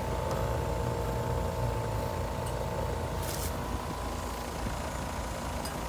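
Heat pump outdoor unit running steadily in heating, its compressor and fan giving a constant low hum with a few steady tones, and a brief faint hiss about three seconds in. The system runs low on refrigerant, which the technician puts down to a leak or an undercharge.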